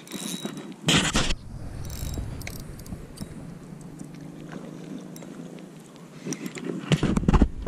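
Spinning reel being worked: a loud rush about a second in as the line goes out, then the handle cranked steadily so the gears whir as the line is wound in, with a cluster of clicks and knocks of handling near the end.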